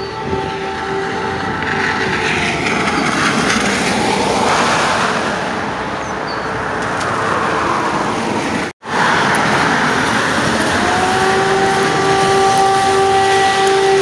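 Civil-defence air-raid siren sounding over the city, its wailing tone rising and falling. The sound cuts out for an instant about nine seconds in, then a siren tone winds up and holds steady near the end.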